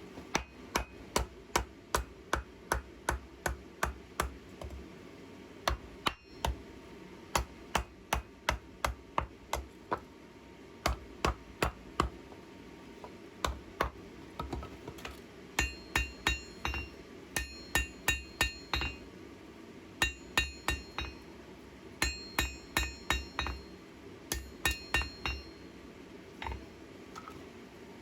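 Hand hammer forging hot steel on an anvil: runs of sharp blows, about two to three a second, with short pauses between runs. Many of the later blows ring with a clear metallic tone.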